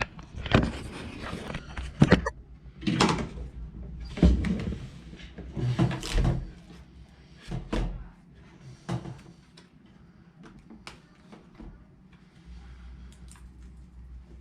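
Hands plugging cable connectors back into an opened iMac: a run of knocks, clicks and scraping handling sounds, busiest in the first half, then fainter scattered clicks.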